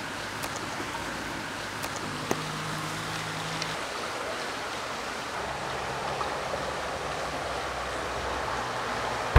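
Steady rushing outdoor ambience, like wind or running water, with a few faint ticks and faint low held notes a couple of seconds in.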